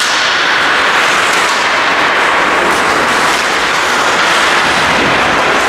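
Steady, even hiss of an ice hockey rink during play, the kind made by skate blades scraping the ice, with a few faint clicks.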